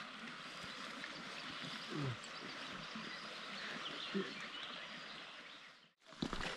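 Quiet river-valley ambience: a steady hiss of flowing river water with a few faint bird calls. The sound cuts out to silence briefly near the end.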